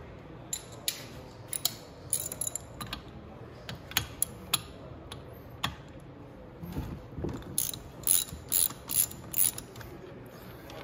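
Ratchet wrench with a 17 mm socket loosening a valve cover on a small 125cc engine. Scattered clicks and metal taps, then a run of about five sharp ratchet clicks a couple of seconds before the end.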